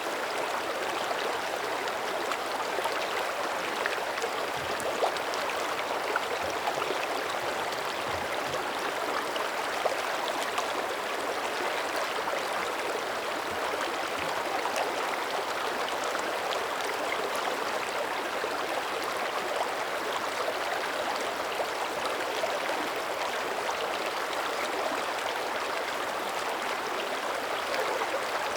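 Mountain creek running steadily over rocks, a constant babble with small splashes and gurgles scattered through it.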